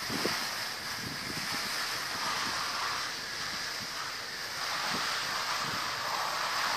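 Wind buffeting the microphone: a steady rushing hiss with irregular low thumps.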